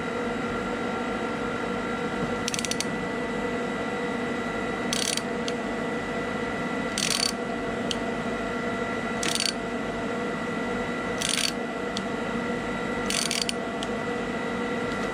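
Short bursts of clicking about every two seconds from a wrench working a nut welded onto a snapped M6 bolt stub, turning the stub slowly out of its thread. A steady hum runs underneath.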